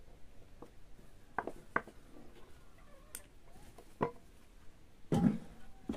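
Scattered light knocks and clicks of objects being handled, with one louder thump a little after five seconds in.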